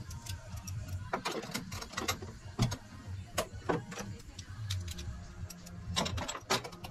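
Irregular plastic-and-metal clicks and knocks as a go-kart's plastic nose cone is fitted onto its front bumper bar and the bumper clips are handled.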